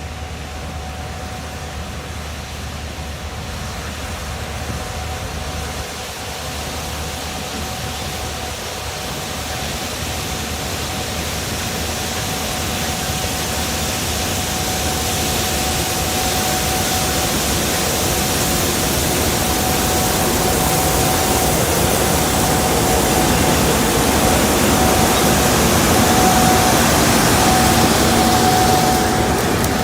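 Steady machine noise with a constant high whine, growing gradually louder and fuller over the stretch, typical of a running engine or harvest machinery.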